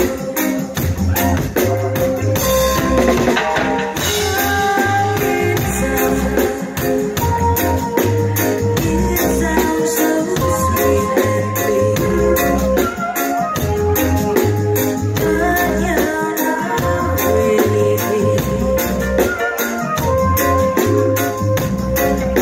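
A live reggae band playing, with a woman singing over a steady bass and drum groove and held keyboard notes.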